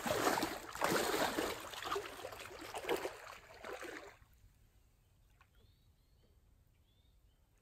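A person in rubber chest waders wading out through shallow lake water: heavy splashing and sloshing with each step for about four seconds, then it stops suddenly. Faint bird chirps follow.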